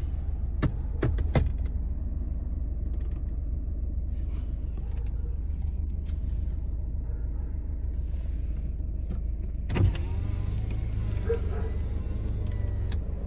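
A car idling with a steady low rumble. There are a few sharp clicks near the start and a knock about ten seconds in, followed by an electric power window motor running for about three seconds.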